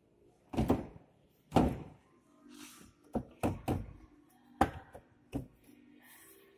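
Hollow plastic knocks and thunks as a Hyundai Solaris headlight unit is pushed and rocked by hand in its broken mounting on the crash-damaged front end, about seven sharp knocks at uneven intervals.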